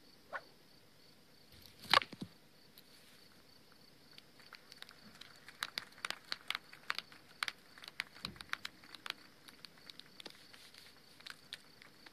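Crickets chirping in a steady, rapid pulse in the background. About two seconds in there is one sharp, loud crack, and from about four seconds on a run of light clicks and clatters.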